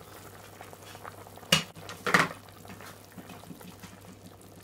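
A pot of beef and tripe with whole onions boiling steadily in water. There are two sharp clinks against the stainless steel pot, about half a second apart, around one and a half and two seconds in.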